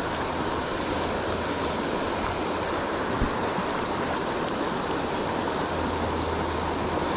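Fast-moving creek water rushing through rapids: a steady, even rushing noise.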